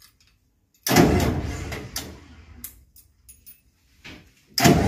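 Two sudden blasts of rushing air with a low rumble, about a second in and again near the end, each fading over a second or so: compressed starting air briefly turning over the ship's large marine diesel main engine.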